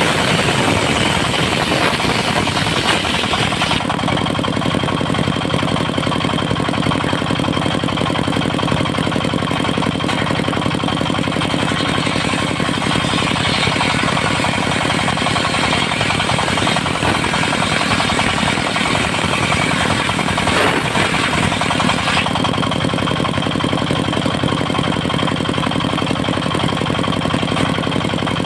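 Diesel engine of a mobile circular sawmill running steadily, with the higher-pitched part of the sound shifting about four seconds in and again near the end.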